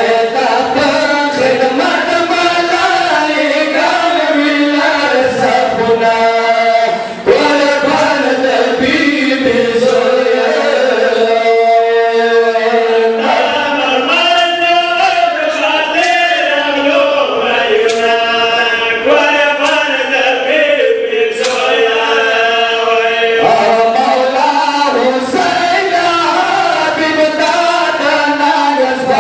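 A group of men chanting a Pashto noha, a Shia mourning lament, in unison without instruments, with long held notes.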